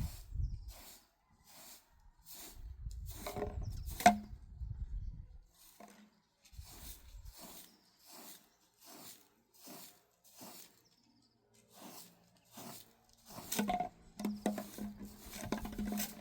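Broom or brush sweeping in regular short strokes, about two a second, with a sharp knock about four seconds in. A low steady hum comes in near the end.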